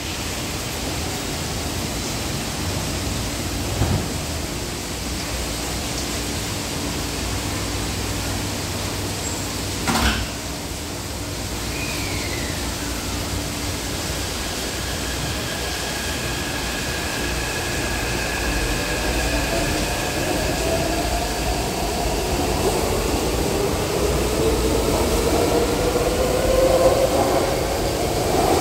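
Taipei Metro train at the platform: a sharp knock about ten seconds in as the doors close, then the train pulling out, its traction motors whining and rising in pitch as it speeds up, growing louder toward the end.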